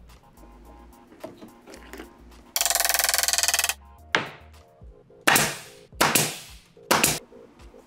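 JITOOL pneumatic nailer firing about five sharp shots into plywood over three seconds, each trailing off in a short hiss. A dense buzzing noise lasting about a second comes just before the shots.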